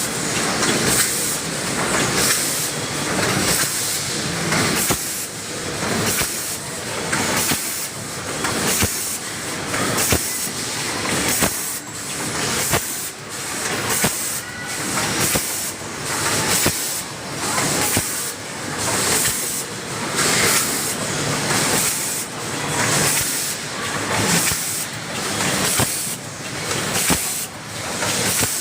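Rotary vacuum pouch packing machine running in its repeating cycle: air hisses in bursts about once a second, with sharp mechanical clicks and clatter from the indexing and sealing stations.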